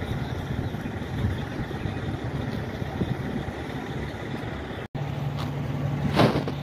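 Diesel semi-truck engines idling, a low steady rumble. The sound drops out for an instant about five seconds in and returns as a steadier low hum, with a brief louder sound near the end.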